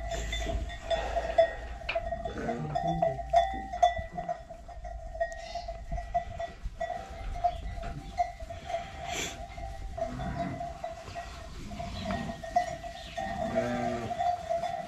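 Small livestock bleating now and then, most clearly near the end, over a steady hum, with scattered knocks and clatters.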